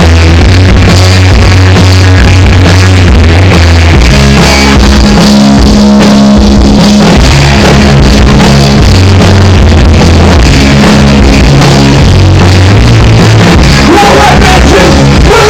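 Loud music with a heavy bass line, held near full level throughout; a wavering voice-like line comes in near the end.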